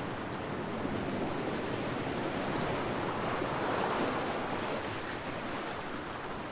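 Ocean waves breaking and washing onto a beach: a steady rushing surf that swells a little about midway.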